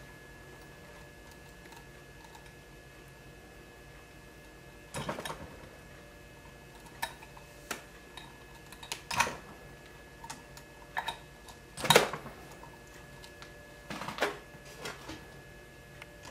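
Scattered sharp clicks and small knocks of hands working on an RC buggy's brushless motor, pulling its wire plugs and handling parts on the plastic and metal chassis, over a faint steady hum. The first few seconds are quiet; the clicks come irregularly after that, the loudest knock about twelve seconds in.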